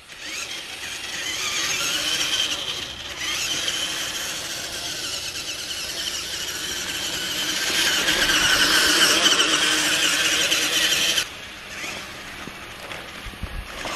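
Toy RC rock-crawler truck driving, its small electric motors and plastic gears whining in a wavering high pitch; the whine falls away sharply about eleven seconds in.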